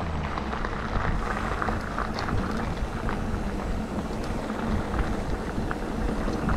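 Calibre Triple B mountain bike riding over a dry dirt-and-gravel trail: steady tyre and wind noise on the camera microphone, with scattered small ticks and rattles from the bike and loose stones.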